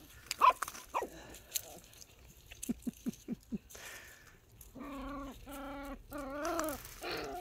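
Young Labradoodle puppies whimpering and yelping: a sharp yelp or two in the first second, a quick run of short yips around the middle, then three drawn-out whines near the end.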